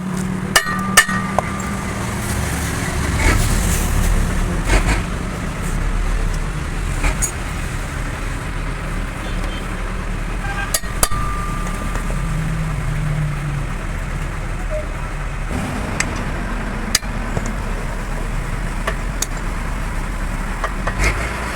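Steady low engine hum of a vehicle running, with a few sharp metallic clinks scattered through it.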